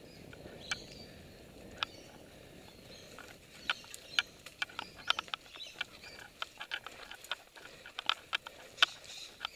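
Mountain bike riding fast over a rough dirt trail: a steady low rumble of tyres on dirt and leaves, broken by many sharp, irregular clicks and knocks as the bike rattles over bumps.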